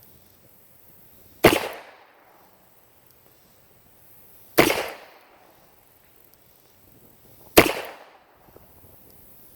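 Three shots from a 4-inch-barrel .38 Special revolver fired double action, about three seconds apart, each a sharp crack with a short trailing echo. The ammunition is 3D-brand .38 Special reloads.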